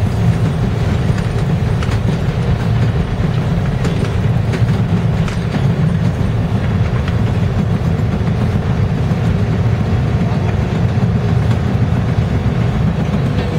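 Steady low rumble of a Toronto subway train's Bombardier T1 car running on open-air track, heard from inside the car, with a few faint clicks from the wheels and rails.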